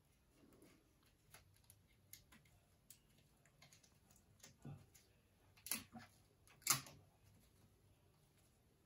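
Faint rustling and light clicks from paper rings and plastic straws being handled, with two louder papery crackles about six and seven seconds in.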